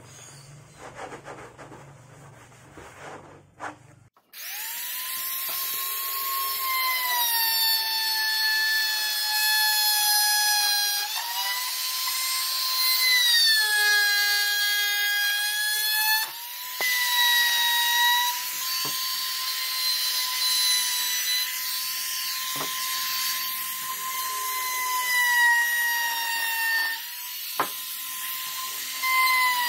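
Electric trim router running at high speed, trimming the edge of HPL laminate glued onto a wooden panel: a steady high whine that starts about four seconds in, its pitch dipping a little now and then, with a few sharp ticks. Before it starts, a cloth rubbing over the laminate.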